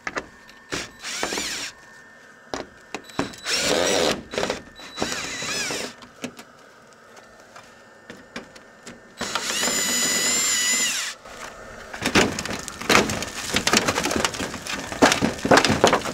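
Power drill run in short trigger pulls, its whine rising and falling, then held steady for about two seconds, while screws are backed out of the floor framing. In the last few seconds comes a run of irregular knocks and cracks from the wood.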